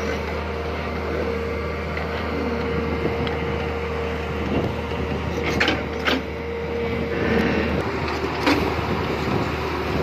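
Tata Hitachi crawler excavator's diesel engine running steadily as it digs, with a steady whine on top. A few sharp knocks come from the bucket and arm, about five and a half, six and eight and a half seconds in.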